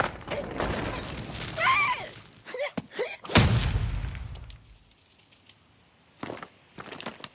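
Cartoon slapstick sound effects: a rumbling clatter with a short wavering cry, then a loud boom about halfway through that dies away over a second or so, followed by a few soft knocks.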